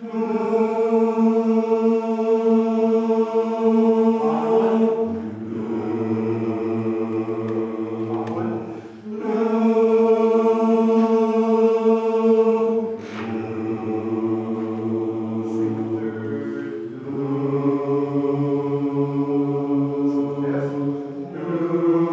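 Men's barbershop chorus singing a cappella, holding full sustained chords and moving to a new chord about every four seconds.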